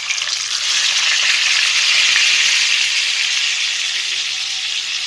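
Whole tilapia frying in hot oil in a stainless steel pan: a loud, steady sizzle right after the fish goes into the oil, easing a little in the second half.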